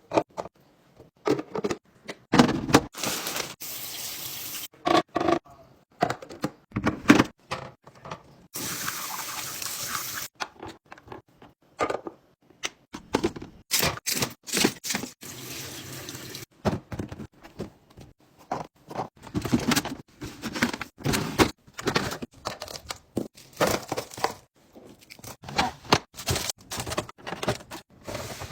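Drinks and food containers being handled and set into a fridge: a busy run of sharp knocks, clicks and clatter, broken by a few seconds-long stretches of rushing noise, the loudest about a third of the way in.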